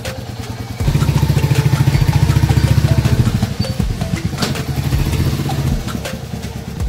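Royal Enfield Hunter 350's single-cylinder engine running with an even, pulsing beat that starts about a second in, loudest for the next two seconds, then continues more softly.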